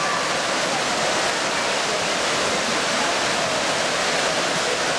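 Steady, echoing wash of noise in an indoor swimming pool hall during a freestyle sprint race: swimmers' splashing mixed with spectators cheering and shouting.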